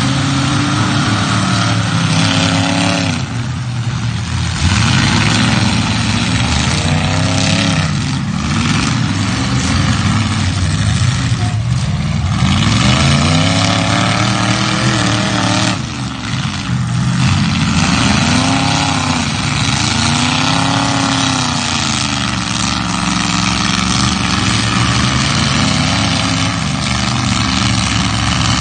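Demolition derby cars' engines revving, several at once, their pitch rising and falling again and again as the cars accelerate and back off.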